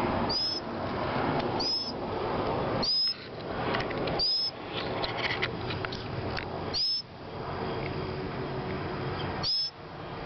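A bird chirping again and again, each chirp short and high, rising then levelling off, about every one to two and a half seconds, over a steady rushing hiss.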